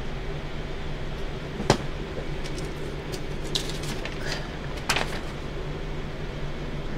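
Steady low hum of room noise with a few sharp clicks, the loudest about two seconds in and another about five seconds in.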